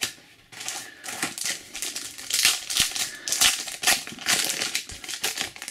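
A trading-card booster pack being torn open, its wrapper crinkling, and the cards slid out and handled: a quick, uneven run of crisp crackling and rustling.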